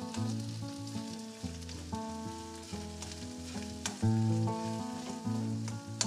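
Kinema (fermented soybeans) sizzling as it fries in oil in a steel kadai, with a metal slotted spatula clicking and scraping against the pan as it is stirred. Background music with steady, changing notes plays over it.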